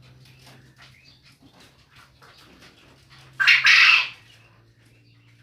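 A male quail gives one loud, short call of two closely joined notes about halfway through, over a faint steady hum and soft ticks.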